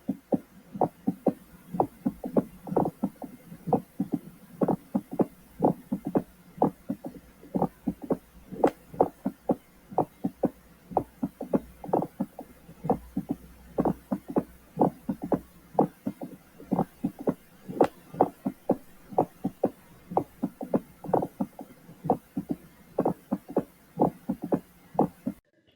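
Mediastinal crunch (Hamman's sign) heard over the chest: a crunching, rasping sound in time with the heartbeat, coming as short strokes about two to three a second. It arises when the beating heart strikes air-filled tissue.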